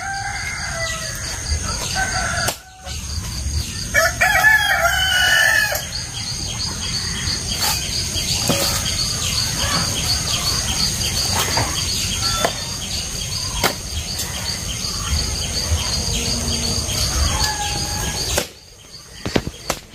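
A rooster crows once, about four seconds in, the loudest sound here, over a steady high-pitched whine, with a few sharp knocks scattered through.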